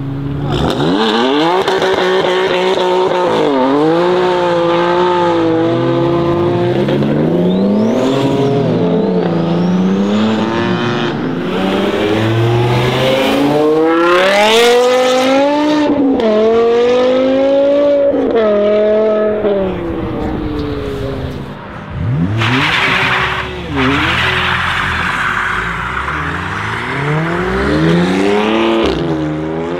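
Several performance BMW M cars accelerating hard in turn, their engine notes rising and dropping again and again as they rev up through the gears. About two-thirds of the way in comes a loud hiss of tyre noise, typical of wheelspin.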